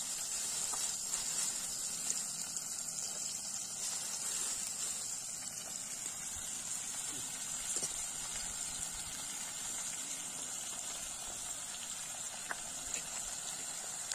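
Portable butane camping stove burning under a pot of diced vegetables, giving a steady high hiss, with a few light clicks near the end.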